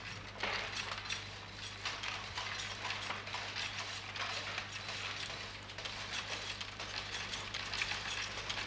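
Faint, irregular clicking and clinking of cast lead type lines being slid and pressed together into a page block on a metal galley, over a steady low hum.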